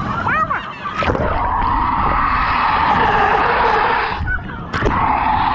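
Water heard by a camera held under the surface of a water-park pool: a dense, steady rushing noise that cuts in about a second in, stops briefly a little after four seconds as the camera surfaces, and cuts back in near the end.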